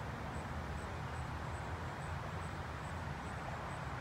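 Steady outdoor background noise with a low rumble, and a faint high ticking repeating about twice a second.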